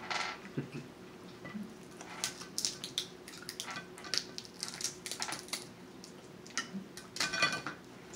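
Boiled snow crab leg shells being cracked and snapped apart by hand: irregular clusters of sharp cracks and crunches, loudest just past seven seconds in.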